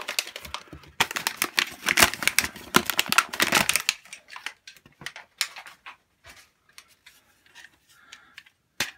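Cardboard packaging being torn and ripped open by hand, a dense crackling rip for about four seconds. Then scattered light clicks and taps as the plastic toy dart blaster is handled.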